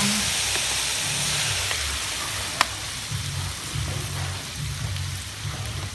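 Crabs frying and sizzling in a hot steel wok as a bottled seasoning is poured in. The sizzle is strongest at first and then eases off. There is one sharp click about two and a half seconds in.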